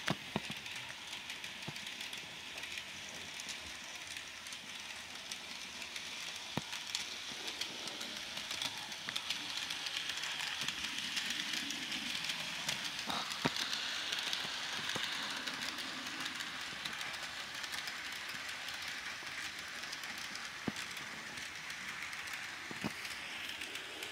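Bachmann N-scale Durango and Silverton model train running on its track: a steady whirring of the small locomotive motor and wheels, with a few light clicks. It grows louder from about eight to sixteen seconds in as the train passes close by.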